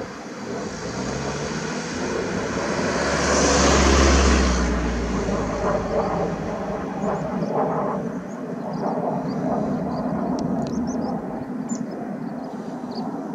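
A passing motor vehicle or aircraft: engine rumble and noise that builds to a peak about four seconds in, then fades away.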